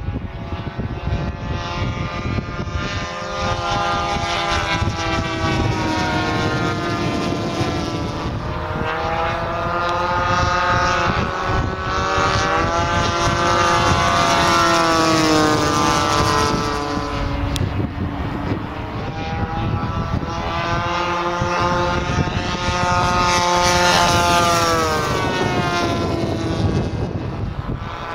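Single-cylinder two-stroke petrol engines of radio-controlled scale Hurricane and Spitfire models (DLE 20cc and DLE 35cc) flying overhead, the propeller drone swelling and rising and falling in pitch as they make two passes.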